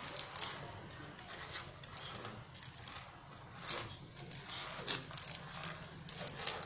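Irregular rustling, scraping and light clicking and clinking of small objects being handled, as when bags and their contents are searched by hand.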